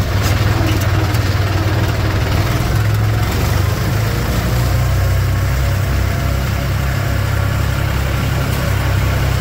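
Old tractor's engine running steadily with a deep, even drone.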